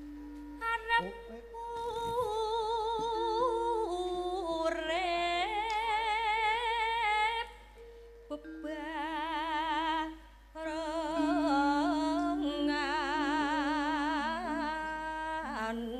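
Female Javanese sinden singing a melismatic vocal line with a wide, steady vibrato, in phrases broken by short pauses about eight and ten seconds in. Steady held instrumental notes from the gamelan sound beneath the voice.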